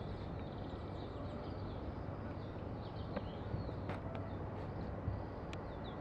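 A flock of oriental greenfinches calling, many short twittering "churi-churi" notes overlapping one another, over a steady low background rumble.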